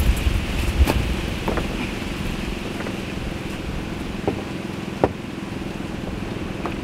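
Wind buffeting the microphone, easing off after about a second, over a steady low hum, with a few sharp knocks, the loudest about five seconds in.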